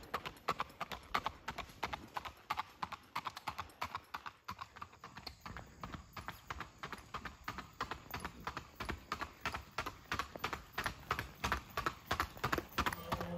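Hooves of a Missouri Fox Trotter gelding striking pavement as it is ridden, a quick, even train of hoofbeats, a little softer partway through.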